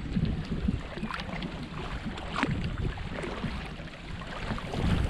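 Braca VII Max kayak paddle blades dipping and pulling through calm river water on alternate sides, with small splashes and drips, over a low wind rumble on the microphone.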